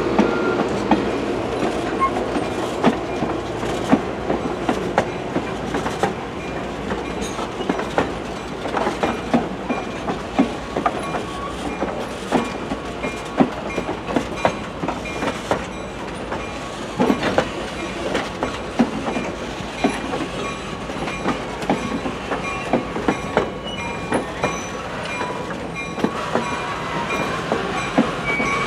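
HO scale model passenger train, Great Northern Empire Builder cars, rolling past on the track: a steady running noise of small metal wheels with many irregular clicks.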